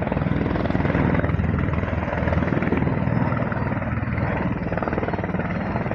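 V-22 Osprey tiltrotor aircraft running its engines and rotors: a steady, rapid beat of the rotor blades.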